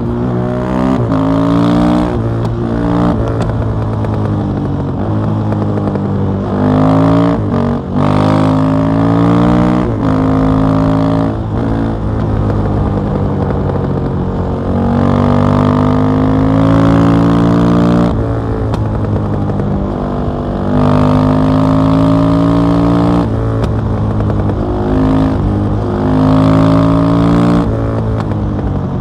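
KTM 660 SMC's single-cylinder four-stroke engine through an Akrapovic exhaust, heard on board while riding. The revs climb and drop back again and again, as the throttle is opened and closed and the gears are shifted.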